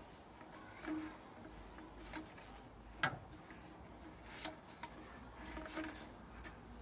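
Scattered light clicks and knocks of a rubber radiator hose being handled and worked onto its fitting in the engine bay, the sharpest about three seconds in and about four and a half seconds in.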